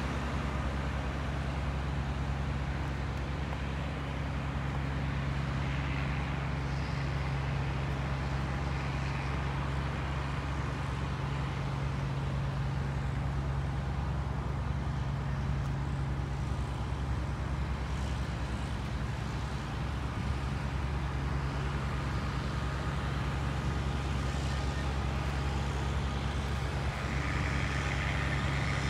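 Steady low drone of a large engine running, an even hum that holds without change.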